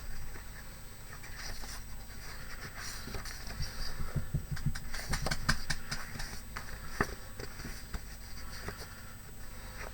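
Sheets of 8x8 craft paper being handled and leafed through: rustling with scattered taps and clicks, busiest in the middle, with one sharper tap about seven seconds in.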